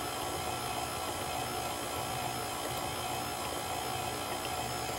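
KitchenAid Classic stand mixer running steadily at one speed with a constant motor whine, its flat beater mixing mashed banana into cheesecake batter in a stainless steel bowl.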